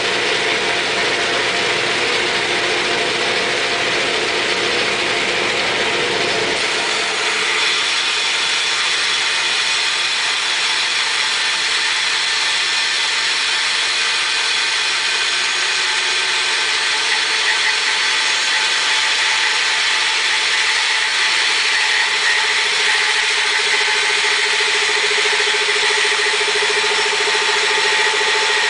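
Grizzly G0513 band saw with a 2 horsepower motor running, its half-inch, 3-teeth-per-inch blade resawing a board of oak. The steady running sound shifts higher about seven seconds in and then holds steady.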